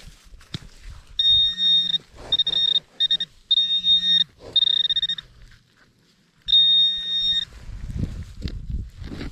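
Metal detector's electronic target tone, a steady high beep sounding in five short bursts as the detector is swept over buried metal, then rustling and scraping in the soil near the end.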